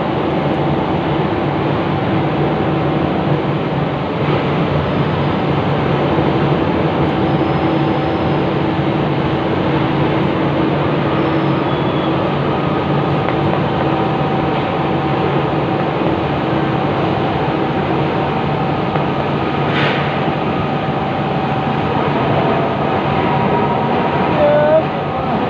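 Train running on rails, a steady loud rumble with a few steady tones over it and one short sharp click about twenty seconds in.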